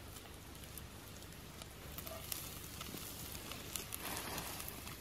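Smoked bacon lardons sizzling in a cast-iron skillet, with small pops and ticks of spitting fat. About four seconds in, the sizzle grows louder and denser as wild mushrooms go into the pan.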